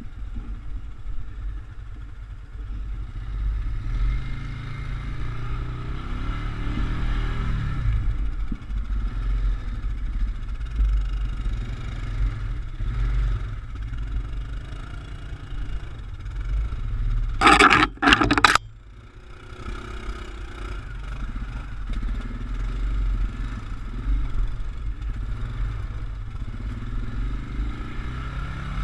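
ATV engine running while riding over rough ground, its revs rising and falling. About two-thirds of the way in, two loud, short bursts of noise cover the engine, and it is quieter for a moment afterwards.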